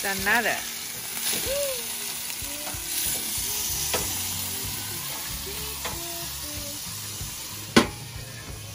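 Whole spatchcocked chickens sizzling on a portable gas grill while they are turned with metal tongs. Near the end, a single sharp clack as the grill lid is shut.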